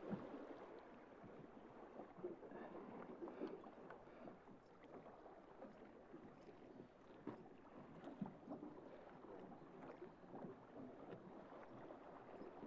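Faint flowing river water around a drift boat, with a few small scattered knocks.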